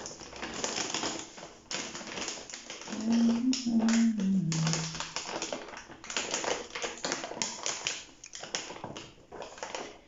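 Crinkling and rustling of a plastic food bag being folded and squeezed through a handheld mini heat sealer, with many small clicks and crackles. A brief low hum, falling in pitch, comes in about three seconds in.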